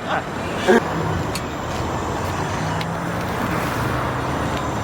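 Steady motor-vehicle running noise, an even rumble with a low hum, with a single click under a second in.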